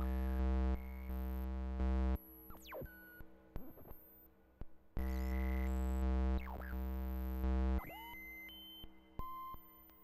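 Kinetik Laboratories GORT the Robot step pulse generator droning: a stack of oscillator tones that steps in pitch, with pitch sweeping down and up as the oscillator frequency knobs are turned. It falls back to a quieter, thinner tone about two seconds in and swells loud again about halfway through.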